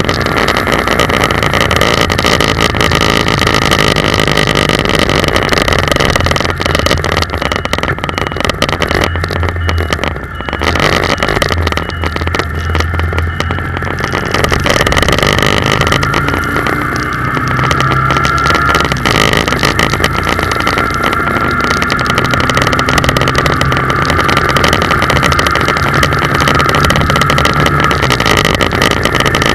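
A car driving, heard from a dashboard camera inside the cabin: steady engine and road noise. The noise dips briefly about ten seconds in, and a tone rises between about sixteen and nineteen seconds in.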